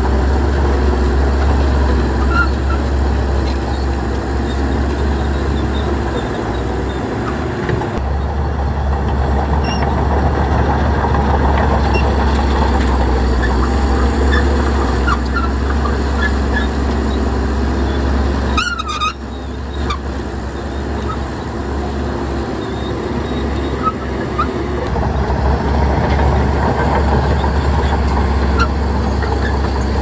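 Heavy diesel earthmoving machinery running steadily with a deep rumble, with scattered short high-pitched squeaks over it and a brief dip in level about two-thirds of the way through.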